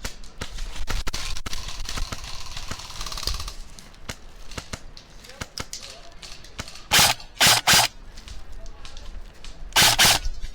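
Airsoft gunfire: scattered faint shots in the first few seconds, then three short, loud bursts of close electric airsoft rifle fire in the second half.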